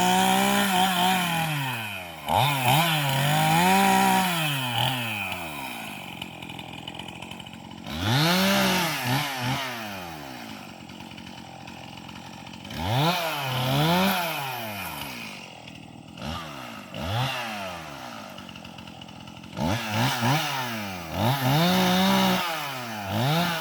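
Chainsaw cutting limbs from a felled tree: the engine revs up and sags in pitch through about five cuts, dropping back toward idle between them.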